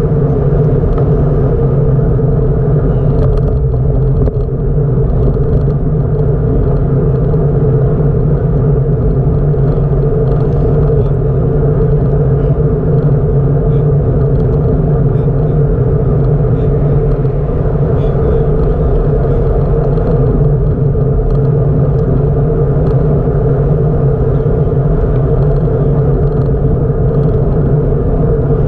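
Steady low rumble of riding a bicycle: wind and tyre noise on the microphone, unbroken throughout.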